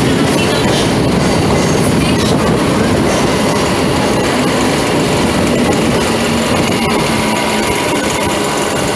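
Electric suburban local train running along a station platform, heard from its open doorway: a steady rumble of wheels and running gear, with a faint steady hum in the second half.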